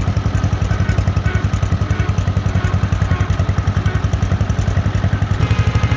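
1948 John Deere Model M's two-cylinder engine running steadily as the tractor drives along the road, with a rapid, even exhaust beat.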